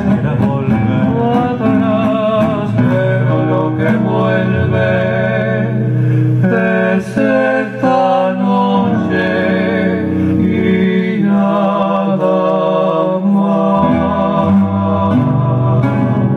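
Recorded music playing: a song with a melody held in wavering notes with vibrato over a steady accompaniment.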